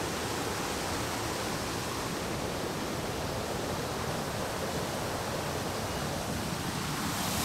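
Steady rush of a waterfall and rocky stream: an even, unbroken hiss of running water.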